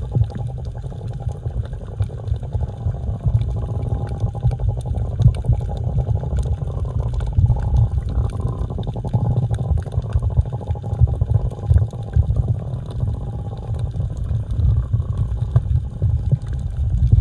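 Underwater ambience: a steady, low rumbling and gurgling of water with faint wavering tones higher up.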